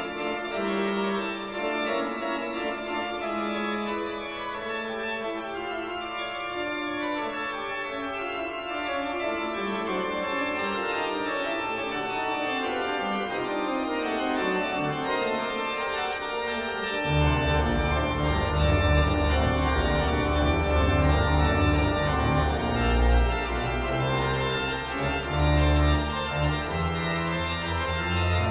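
Background music of held, organ-like keyboard chords that change every few seconds, joined by a strong bass line about 17 seconds in.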